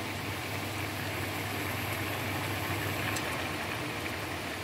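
Chicken adobo sauce simmering in a pan, a steady fizzy bubbling over a constant low hum.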